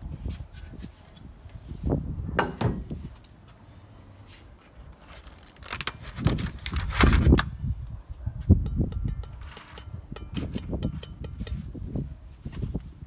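Handling clatter: a steel kazan pot is lifted off and set down with knocks, then a chef's knife is slid out of its box, with further scraping and tapping on the table.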